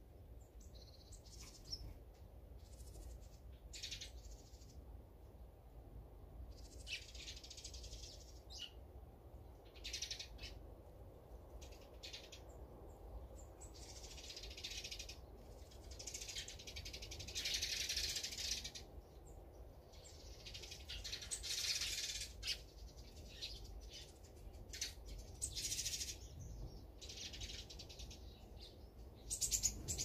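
Small wild songbirds chirping and calling in scattered short bursts, with several longer, harsher calls lasting a second or two.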